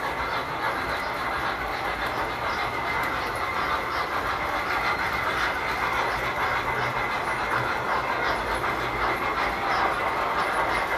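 Tinplate model trains running on metal track: a steady rolling, running noise with a light, regular clicking of wheels over the rail joints.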